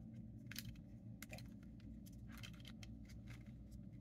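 Rubik's cube layers being turned by hand: a series of faint, irregular plastic clicks and scrapes.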